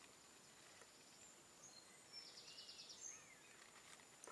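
Near silence: faint room tone, with a few faint high chirps and a short rapid trill about halfway through.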